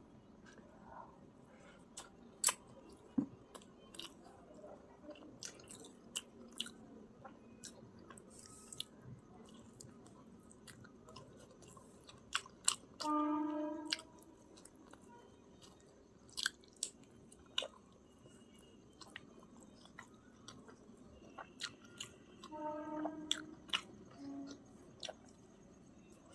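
A person chewing and eating chicken biryani close to the microphone, with frequent sharp mouth clicks and smacks. Twice a short pitched sound about a second long, around the middle and near the end.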